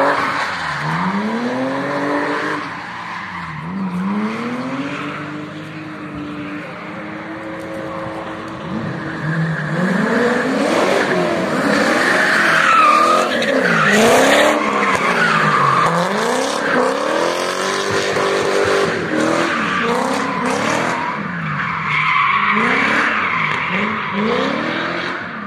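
BMW 3 Series engine revving up and down over and over as the car is driven sideways in a drift, with tyre squeal. The revs rise and fall every second or two and are busiest about halfway through.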